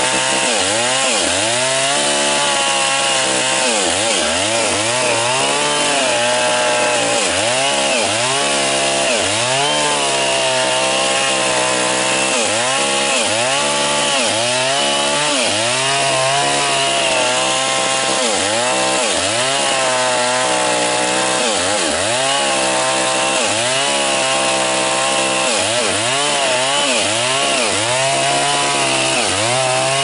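Stihl two-stroke chainsaw cutting into a standing tree trunk near its base, running at high revs. Its engine pitch dips under load and climbs back every second or so as the chain bites and eases.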